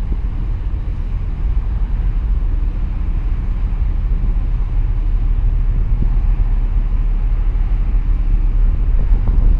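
Wind buffeting the microphone: a loud, steady, low rumble over open harbour water.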